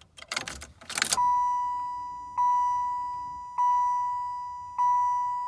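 Keys rattling briefly, then the Chevrolet Impala SS's dashboard warning chime: a single steady electronic tone that restarts about every 1.2 seconds and fades between strikes, sounding with the key turned on before the engine is cranked.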